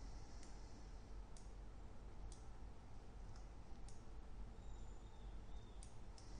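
Scattered clicks of a computer mouse, roughly one a second, over a faint low hum.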